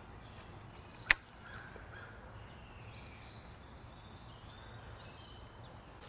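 A single sharp click about a second in, over faint birds calling in the background.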